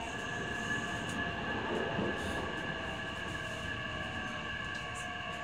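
Nishitetsu 9000 series electric train standing still, heard inside the car: a steady high hum of several held tones from its onboard electrical equipment over a low background rumble, with a brief louder rumble about two seconds in.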